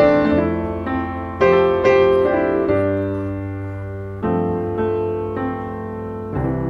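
Background piano music: slow notes and chords struck every second or so and left to fade.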